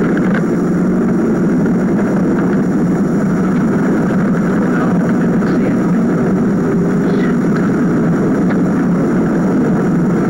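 Steady rumble of a car's engine and tyres heard from inside the cabin, muffled and even.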